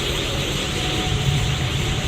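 Super Saiyan God aura sound effect from the anime: a steady rushing roar of a glowing power aura, with a low rumble underneath and a faint steady hum.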